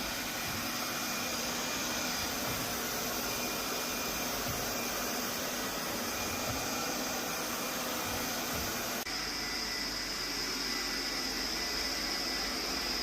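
Lefant M210 Pro+ robot vacuum running with a steady whir of suction motor and brushes. About nine seconds in, the sound shifts and a higher whine comes up.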